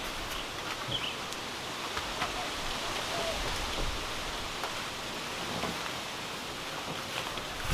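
Steady outdoor background hiss, like a breeze in the yard's leaves, with a few faint clicks and knocks.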